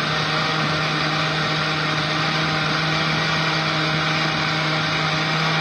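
Electric blender motor running steadily at one constant speed, blending juice.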